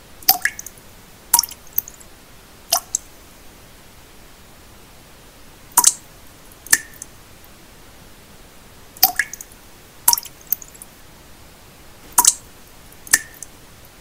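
Water drops falling one by one into still water, about nine short, bright plinks in runs a second or so apart, some with a brief ringing tone. Under them runs a steady soft hiss of pink noise.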